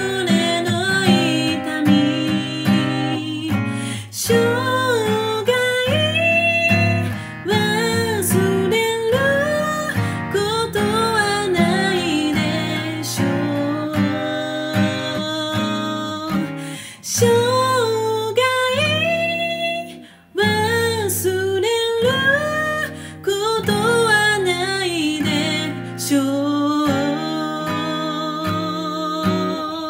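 A singer sings a Japanese pop ballad over a strummed steel-string acoustic guitar capoed at the first fret, with a brief drop in level about two-thirds of the way through.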